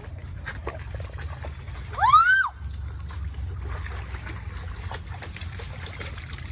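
Shallow creek water trickling and splashing as a Labrador puppy wades through it and a child slaps the water with a stick. About two seconds in comes one loud, short cry that rises and falls in pitch.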